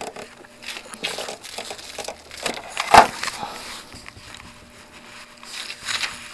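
Light plastic clicks and handling noise, with one sharp snap about three seconds in, as the plastic latches on the housing of a Consul electronic water purifier's control board are pried open.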